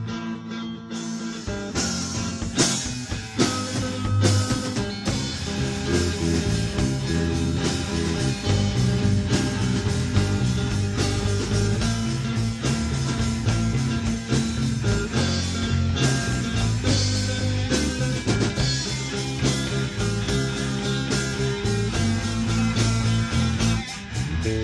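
Rock band jamming, guitar-led, with the full band coming in about two seconds in after a held opening note.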